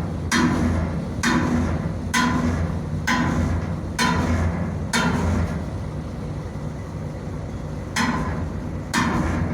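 Hammer blows on the sheet metal of a boat's exhaust stack, about one a second, each with a short metallic ring. The blows pause for about three seconds in the middle, then resume.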